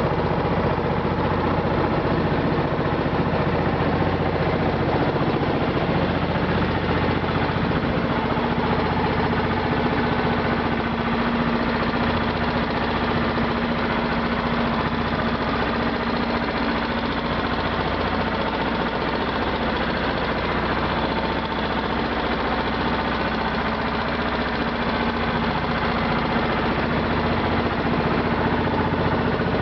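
Motor launch's engine running steadily, an even drone with no change in speed.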